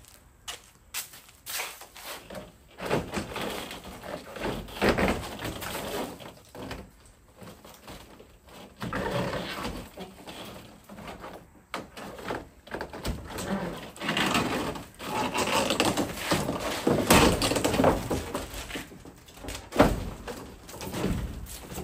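Siding being stripped off a porch wall by hand: irregular knocks and thuds with longer stretches of scraping and rasping as boards are pried loose and handled.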